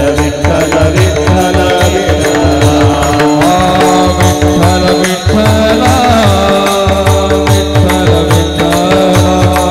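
Marathi Varkari kirtan music: a kirtan melody with long held harmonium-like notes over a steady, regularly repeating drum rhythm, and a melodic line gliding up and down near the middle.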